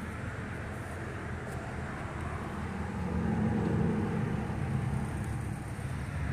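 Classic Volkswagen Beetle's air-cooled flat-four engine running as the car drives slowly past, growing louder about three seconds in as it comes closest.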